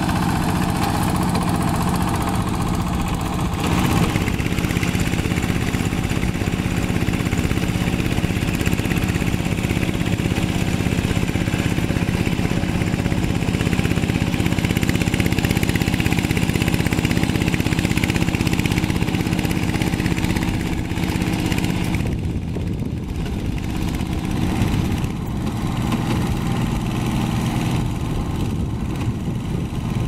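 Two-wheel hand tractor's single-cylinder diesel engine running steadily at full throttle under load while ploughing wet rice-field soil. The engine note changes abruptly about 4 seconds in and again about 22 seconds in.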